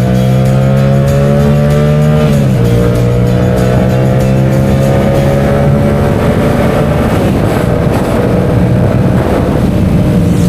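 Yamaha MT-07's 689 cc crossplane parallel-twin engine pulling under acceleration. Its pitch climbs steadily, drops once about two and a half seconds in at an upshift, then climbs again. From about six seconds in the sound turns rough and noisier.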